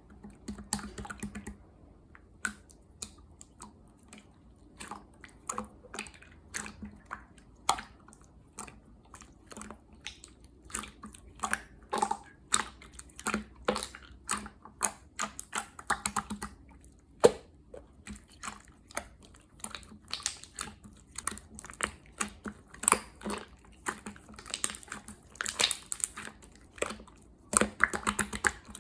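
Slime being played with by hand, giving irregular sticky clicks and pops in quick succession.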